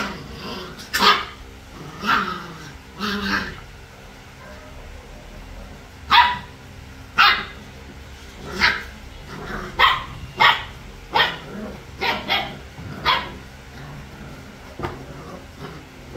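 Three-week-old puppies yapping as they play: short, high-pitched yaps, a few at the start, then after a brief pause a quick run of about ten more.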